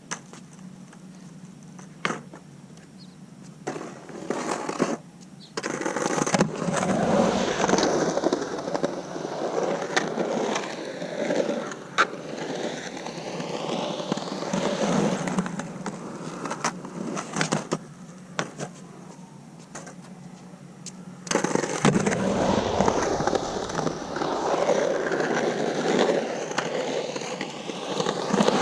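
Skateboard rolling on Santa Cruz Slime Balls Vomits wheels (66 mm, 97a urethane) while carving in a skatepark bowl. A few sharp clicks come first, then the rolling noise swells and fades with each carve, drops back for a few seconds about two-thirds of the way in, and picks up again near the end.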